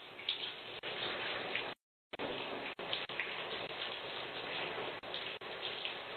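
Steady hissing noise picked up by a doorbell camera's microphone, with a few faint clicks and a brief total dropout about two seconds in.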